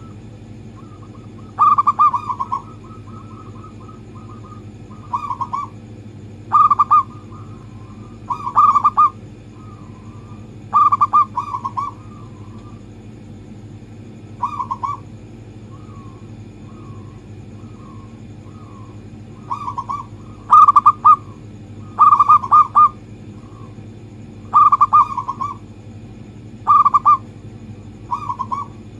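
Zebra dove (perkutut) cooing: about a dozen short, trilled coo phrases, one every two seconds or so, with softer rolling coos between them, over a steady low hum.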